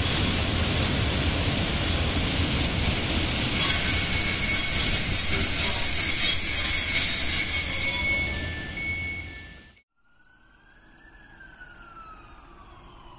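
PKP Intercity passenger coaches rolling slowly into the station, the wheels and brakes giving a steady high-pitched squeal over the rumble of the running gear. The sound fades and cuts off about ten seconds in, leaving only a faint background with a slowly rising and falling tone.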